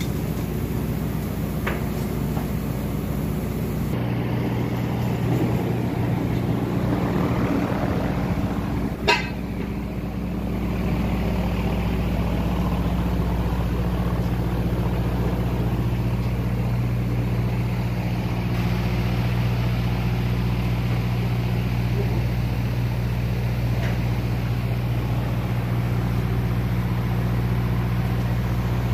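Steady low hum of engine-room machinery running, with one sharp click about nine seconds in.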